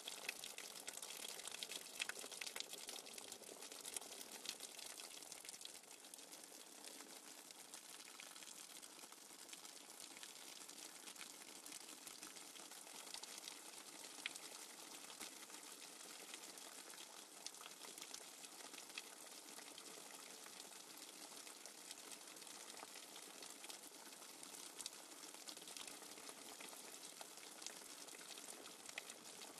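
Running water as a background nature-sound track: a steady, faint hiss of flowing water with many small crackles and ticks in it.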